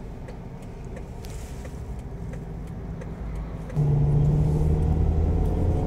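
Car engine and road noise heard from inside the moving car's cabin: a low, steady rumble that turns suddenly louder about two-thirds of the way through, with a steady engine hum.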